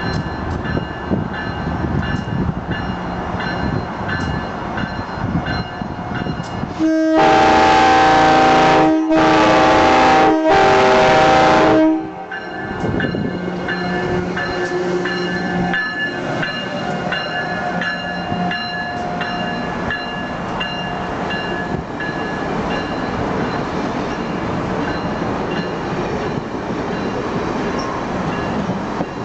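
Amtrak Northeast Regional passenger train running past on the rails. About seven seconds in, its horn sounds three loud blasts, each a second or two long with only short breaks between.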